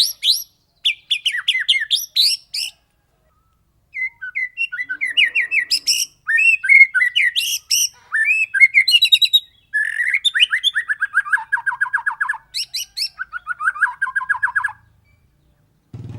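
White-rumped shama singing loudly in full song: fast runs of repeated sharp notes and rolling trills, broken by two short pauses.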